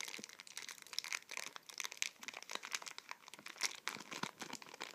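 Foil trading-card booster pack crinkling as it is handled and turned over in the hands, a quick irregular crackle.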